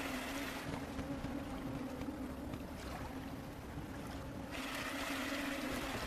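Steady outdoor ambience of wind and running river water, with a faint steady low hum beneath it.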